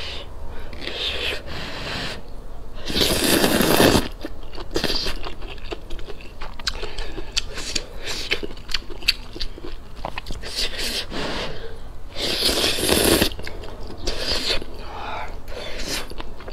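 A person eating noodles from chopsticks, with two long, loud slurps, about three seconds in and about twelve seconds in. Between them come wet chewing and smacking mouth clicks.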